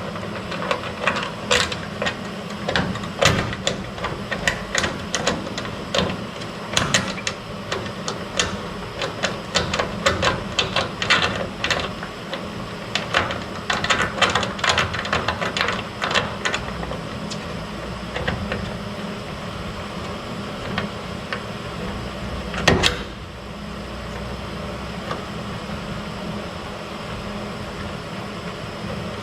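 Irregular clicks and knocks from hand work fitting a truck door latch assembly, thick for the first half, then sparse, with one louder knock about 23 seconds in, over a steady low hum.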